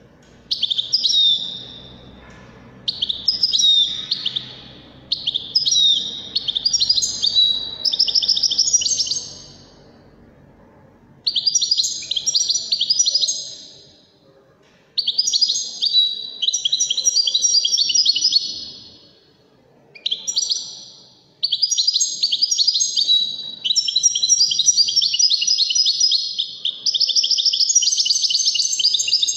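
Caged European goldfinch singing: phrases of fast, high twittering a second or two long, separated by short pauses. The phrases run on almost without a break over the last several seconds.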